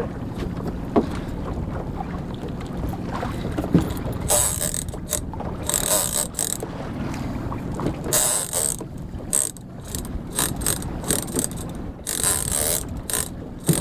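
Big-game lever-drag reel buzzing and clicking under the load of a hooked bluefin tuna, in repeated bursts a second or so long, as the drag gives line. Steady wind and water rumble underneath.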